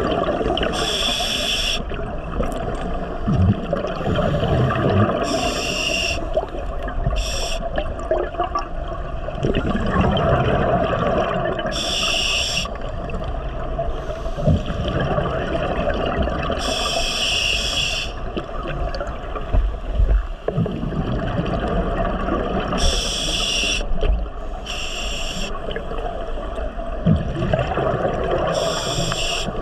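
Scuba diver breathing through a regulator underwater: a steady watery wash, broken every few seconds by a short hissing burst of exhaled bubbles.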